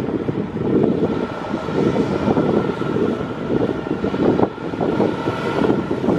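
Cummins ISX11.9 six-cylinder diesel of a Kenworth T800 semi truck running steadily, with a faint high whine and wind buffeting the microphone.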